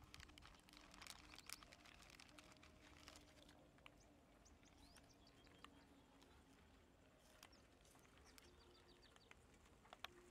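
Near silence: faint scattered clicks and rustles, with a few faint bird chirps.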